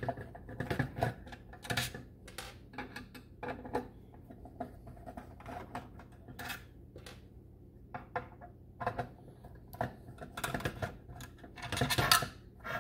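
Irregular small clicks, taps and rattles of hands handling a plastic HEI distributor cap, its coil and small metal screws and contacts on a workbench, busiest near the end.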